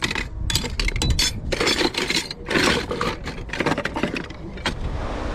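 Metal belt buckles clinking and scraping against each other in a wooden box as a hand rummages through them. The clinks come irregularly and stop shortly before the end.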